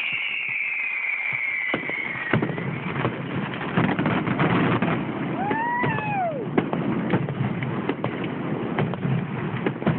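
Fireworks finale barrage: a whistling shell falls in pitch and stops about two seconds in, then a dense run of bangs and crackling bursts follows, with a short rising-then-falling whistle about six seconds in.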